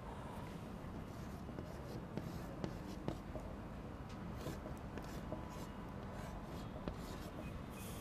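White chalk drawing short strokes on a blackboard: faint scratching with a few light taps as small leaves are sketched along a branch.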